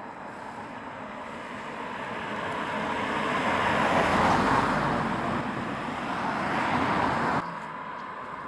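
Cars driving past close by, tyre and engine noise swelling as each one goes by, loudest about four seconds in and again near seven seconds, then cutting off abruptly.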